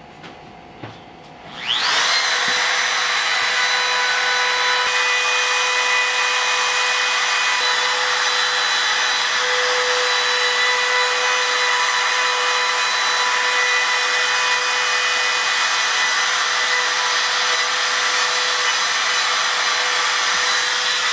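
Compact trim router with a flush-trim bit switched on about two seconds in, its whine rising quickly to full speed, then running steadily as it trims the plastic laminate edge flush with the plywood.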